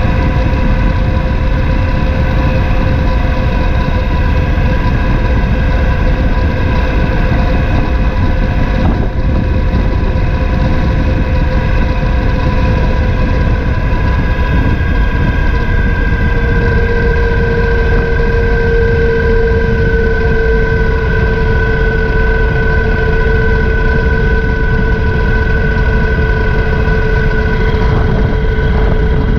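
Triumph Thunderbird LT's parallel-twin engine running steadily under heavy wind and road rush on a camera mounted low by the front wheel. The steady engine hum dips slightly in pitch a little past halfway.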